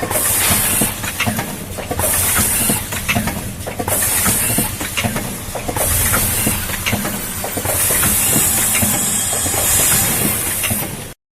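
Nespresso capsule filling and sealing machine running: a hiss about every two seconds, each lasting under a second, over continuous mechanical clicking and clatter. The sound cuts off suddenly near the end.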